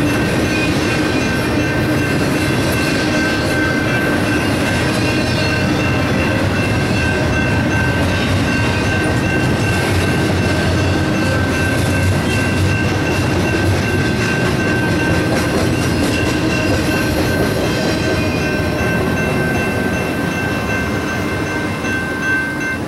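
Double-stack freight cars rolling past on the rails, with the grade crossing's Safetran and General Signals Type-2 electronic bells ringing steadily over them. The rail noise eases off near the end as the last car clears the crossing while the bells keep ringing.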